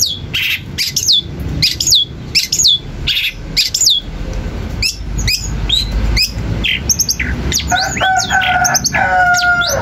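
A caged long-tailed shrike (cendet) singing: a run of sharp high notes, each falling in pitch, about two a second. In the last two seconds a lower, steadier held note comes in.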